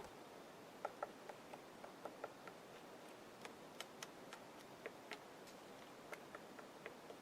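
Woodpecker pecking at a tree: faint, sharp, irregularly spaced taps, about one to two a second.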